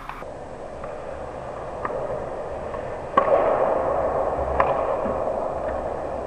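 Ice hockey play in front of the net: skate blades scraping on the ice, louder as players close in, with sharp clacks of sticks and puck about six times, the loudest a crack about three seconds in.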